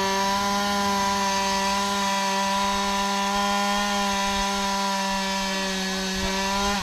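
Chainsaw engine running at full throttle as it cuts into a tree trunk, one steady high pitch held throughout. At the very end the throttle is let off and the pitch falls away.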